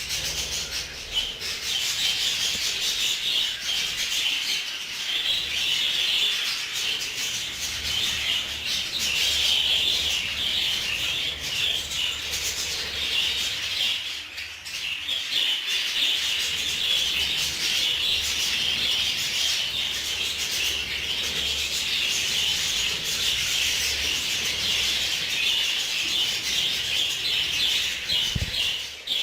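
A colony of budgerigars chattering and warbling all at once in a continuous, dense din.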